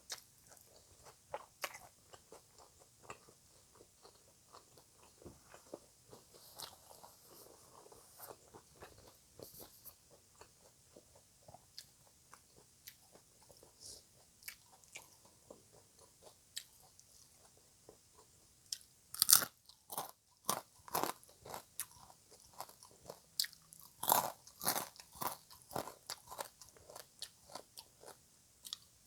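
Close-miked chewing and biting of crunchy papaya salad: soft, scattered chewing at first, then a run of louder, crisp crunching bites from about two-thirds of the way in.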